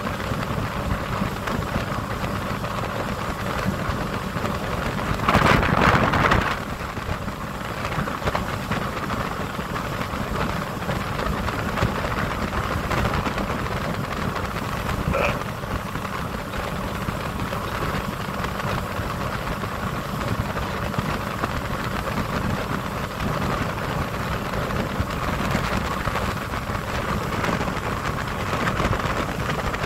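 Motorboat underway: a steady mix of engine, water rushing past the hull and wind on the microphone, with one louder rush lasting about a second, some five seconds in.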